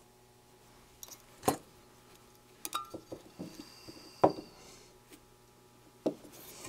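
A handful of light metallic clinks and knocks, spaced unevenly, with the two loudest about a second and a half in and a little past the middle. They come from the metal night-scope housing and soldering iron being handled and shifting on a wooden workbench.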